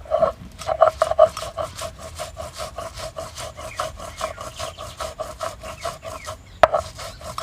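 Mustard seeds being ground on a flat grinding stone (sil-pata) with a stone roller: rapid, even back-and-forth scraping strokes, several a second, with one sharp knock of stone near the end.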